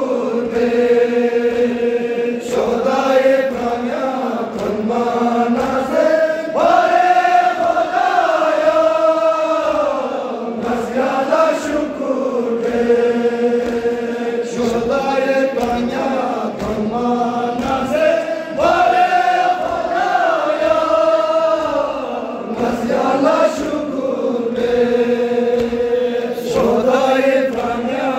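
A group of young men chanting a noha, a Shia mourning lament, together into a microphone in long held, rising and falling lines, with hands striking chests in matam keeping a steady beat underneath.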